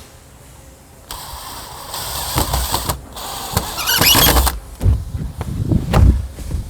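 Power drill with a screw bit driving a 2.5-inch screw into a pre-drilled hole in a wooden crate panel, running in two spells, the second louder and higher. A few knocks follow near the end.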